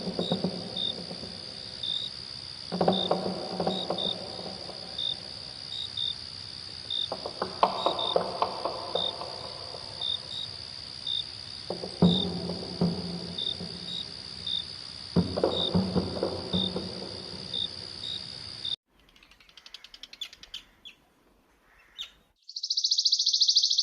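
Night insect chorus of crickets: a steady high trill with regular chirps. Short low pitched, pulsing phrases recur about every four seconds over it. All of it cuts off suddenly about three quarters of the way in, leaving faint pulsing and then a brief loud high buzz near the end.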